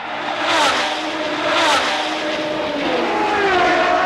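1978 Formula 1 cars with Ford Cosworth DFV V8 engines passing at racing speed one after another, each engine note dropping in pitch as it goes by. Two cars pass about a second apart, then a third follows in the second half.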